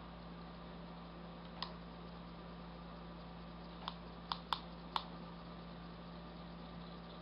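Five light, sharp clicks over a steady low hum: one alone, then four in quick succession about two seconds later.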